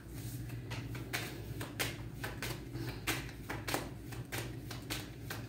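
Light, irregular clicks and taps, a few a second, over a steady low hum.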